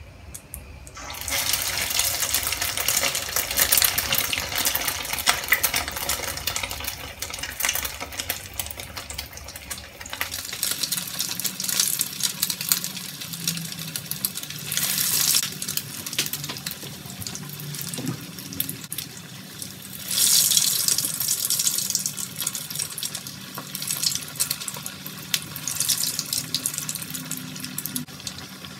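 Egg-dipped chicken resha kababs frying in hot oil: a dense crackling sizzle that starts about a second in, with two louder surges later on.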